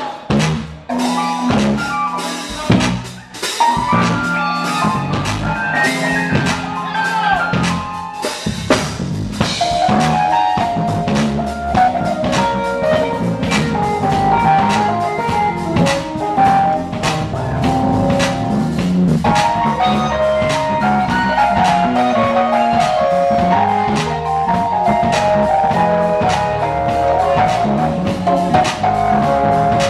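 Live band music: a bass solo over a drum kit. Sparse drum hits and bass notes at first, then more instruments fill in with busier, higher notes from about nine seconds in.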